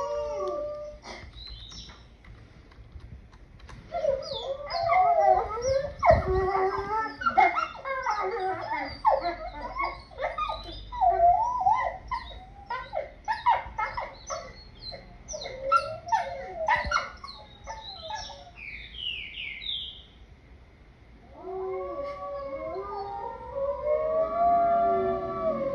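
A pack of wolves howling in chorus. A single howl ends about a second in; after a short lull, many voices break into a busy tangle of yips, barks and wavering cries for about sixteen seconds. Near the end several long howls rise and fall over one another.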